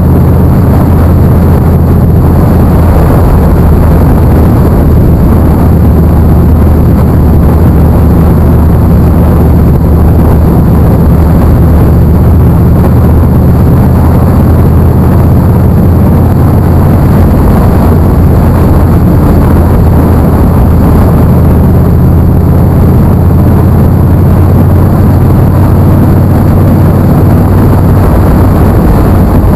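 Motorcycle engine running steadily at cruising speed, mixed with wind rush over the bike-mounted camera's microphone. The sound is loud and unchanging throughout.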